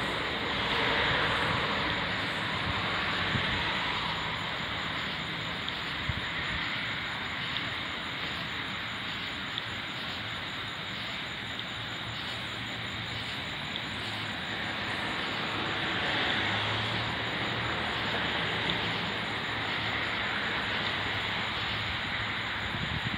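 Steady outdoor background rumble and hiss with no clear single source, swelling slightly near the start and again about two-thirds of the way through, with a few faint ticks.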